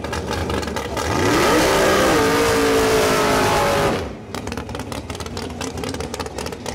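Outlaw drag car's engine revving hard through a burnout, the pitch climbing and then held, with the hiss of spinning tyres, for about three seconds. It then cuts off suddenly to a quieter, crackling, popping engine note as the car rolls out of the smoke.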